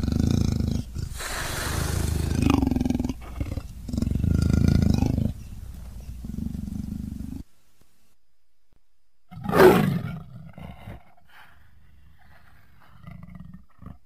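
Leopard roaring and growling in a run of low calls for about five seconds. After a pause, one short, loud call falling in pitch comes about two-thirds of the way through.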